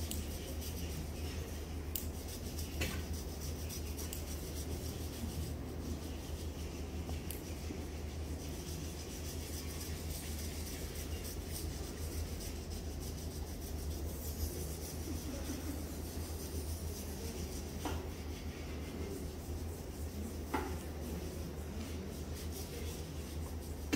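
Hands rubbing and kneading bare skin during a foot and calf massage, over a steady low hum, with a few faint ticks.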